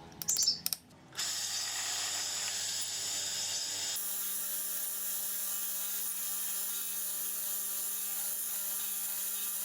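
A few sharp clicks, then a power tool running steadily with a high, hissing whine; its sound shifts about four seconds in and then holds steady.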